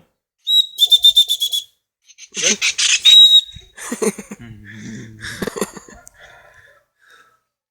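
Kingfisher (tengkek) calling: a rapid run of about eight sharp, high notes, then a louder harsh burst about two seconds later, followed by fainter calls.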